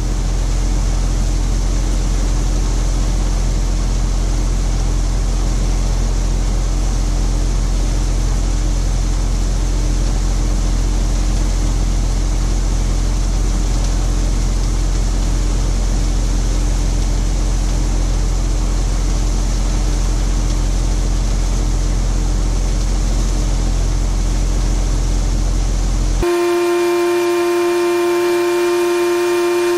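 New Holland Model 60 forage blower and the tractor powering it running steadily under load, as a John Deere 716A wagon's beaters feed chopped corn silage into the blower hopper. Near the end the machine noise cuts off abruptly and a steady, horn-like held tone of several pitches takes its place.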